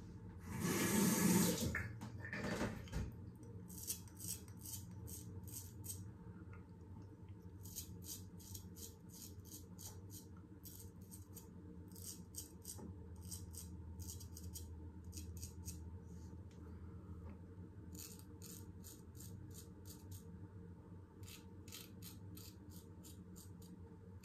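Damascus steel straight razor cutting a day's stubble: runs of short, crisp scraping strokes, about three or four a second, with pauses between the runs. A brief rushing noise about a second in is the loudest sound.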